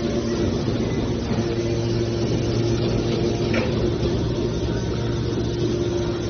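Hydraulic scrap-metal baling machine running, a steady machine hum from its power unit, with one faint tick about three and a half seconds in.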